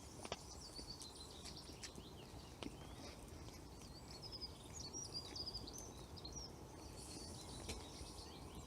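Faint songbirds chirping and warbling in woodland, busiest around the middle, with a couple of light clicks.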